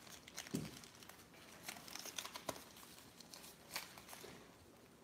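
Foil-wrapped baseball card packs crinkling and rustling faintly as a stack of them is handled and squared up, with a few light taps.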